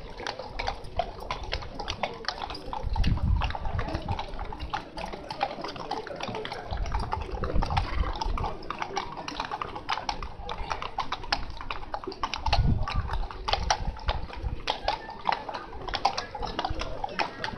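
Horses' hooves clip-clopping on a wet paved road as mounted riders walk past, the steps of several horses overlapping in an uneven patter. Low rumbles come and go a few times.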